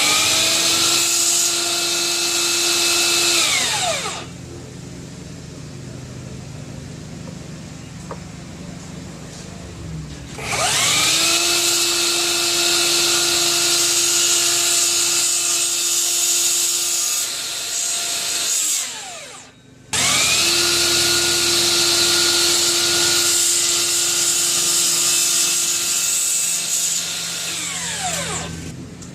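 Miter saw motor switched on three times: each time it spins up with a rising whine, runs steadily for several seconds, and winds down quickly when released.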